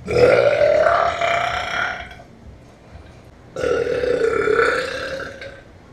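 Two long, drawn-out belches from a young woman, each lasting about two seconds, with a pause of about a second and a half between them.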